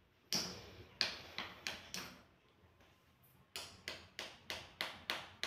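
Sharp taps from a toddler striking a small hard object against a plastic toy motorbike and the tiled floor: a few scattered taps in the first two seconds, then an even run of about three taps a second.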